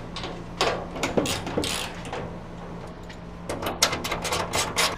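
Hand ratchet with a 9/16 socket clicking in short runs as lock nuts are tightened onto bolts. A few clicks come in the first two seconds, then a faster run near the end.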